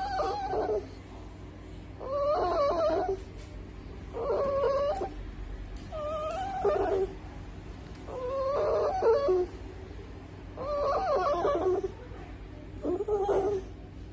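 Small terrier whining and moaning in a series of drawn-out, wavering calls, about seven of them, roughly every two seconds.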